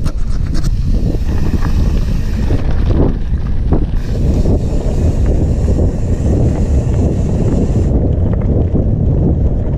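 Wind buffeting an action camera's microphone over the rumble of mountain bike tyres rolling on loose gravel and rock, with a few knocks and rattles from the bike.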